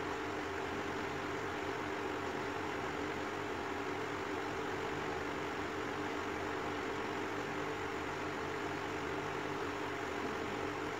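A steady mechanical hum with hiss and a few held low tones, unchanging throughout.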